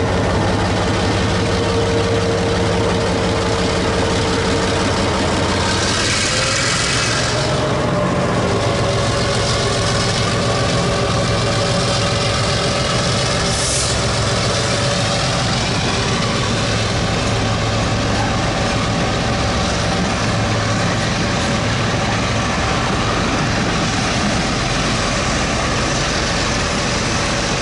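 TRA R20-class diesel locomotive pulling away with a freight train, its engine running with a steady hum and tone, followed by the wagons rolling past. A burst of hiss comes about six seconds in and a shorter one about fourteen seconds in.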